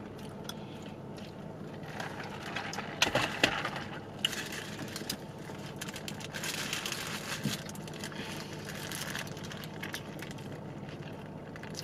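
Eating sounds from a paper-wrapped burger: crinkling of the wrapper and crunchy chewing, with a few sharp clicks about three seconds in, over a low steady hum.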